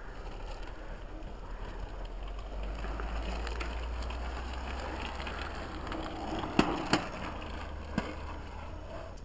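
BMX bike tyres rolling over dirt and asphalt track, a steady hiss of riding noise over a low rumble, with three sharp clicks or knocks in the second half.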